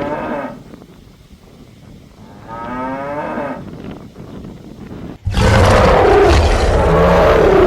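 A goat bleating briefly in a wavering voice, twice, then about five seconds in a cow mooing loudly for nearly three seconds.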